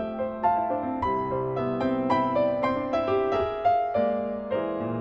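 Solo piano playing a flowing passage of notes, several a second, over held lower notes: a movement from a classical piano suite.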